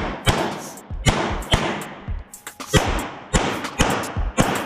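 A 9mm Glock pistol firing a rapid string of shots, about two a second, each shot ringing off in the echo of an indoor range hall.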